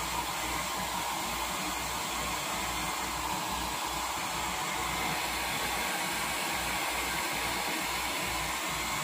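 Hair dryer running steadily, blowing air as she dries her hair.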